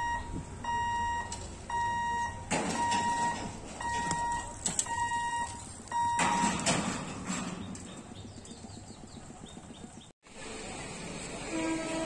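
Level-crossing warning beeper sounding a steady electronic beep, about three beeps every two seconds, while the boom barriers are lowered; it stops a little past halfway, once the gate is shut. Traffic noise swells in the middle.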